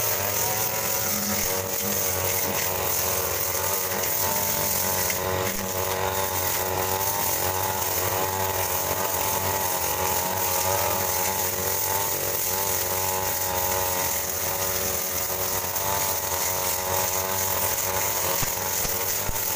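Backpack brush cutter's two-stroke engine running steadily at high speed while its blade cuts grass and weeds. The pitch wavers slightly as it works.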